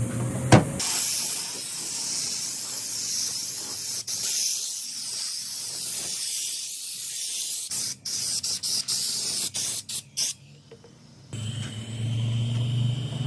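Air-powered undercoating gun spraying a textured protective coating onto a car's rocker panel: a steady loud hiss of compressed air and atomised coating, which breaks into short trigger bursts near the end and then stops. A low hum follows in the last couple of seconds.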